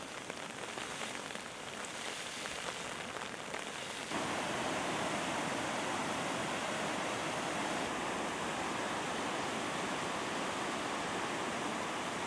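Muddy floodwater rushing, a steady watery noise that jumps louder and fuller about four seconds in.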